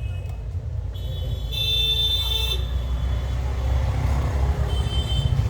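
Low rumble of road traffic that grows slowly louder, with a high horn toot about a second in lasting over a second and a shorter toot near the end.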